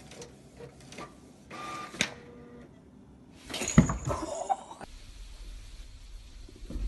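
Printer running as it feeds out paper, then a sudden loud clatter and scuffle about halfway through. A low steady rumble follows.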